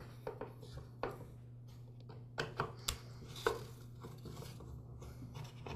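Screwdriver backing screws out of the plastic cover of a Weed Eater XT10 string trimmer: scattered small clicks and taps of the tool and plastic parts, a quick cluster of them about halfway through.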